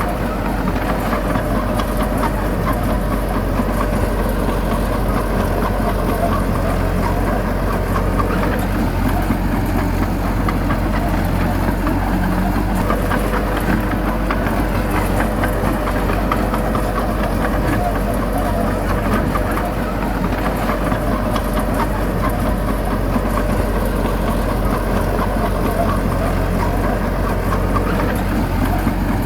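Heavy diesel engine of earthmoving machinery running steadily at an even speed.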